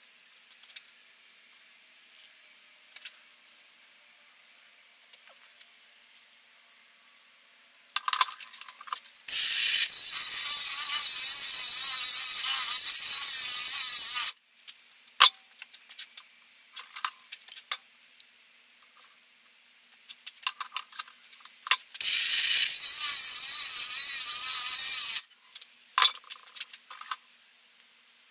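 Cordless 4.5-inch angle grinder with a cutting disc cutting into a steel cross peen hammer head clamped in a vise: two loud, harsh, high-pitched bursts, the first about five seconds long and the second about three. Light clicks and knocks come before, between and after the bursts.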